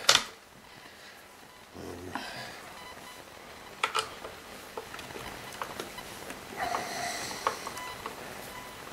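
Handling noises from taking apart a Kirby G4 vacuum: a sharp plastic click as the cover comes loose right at the start, then scattered small clicks, knocks and a brief scrape as a screwdriver works on the screws of the plastic housing.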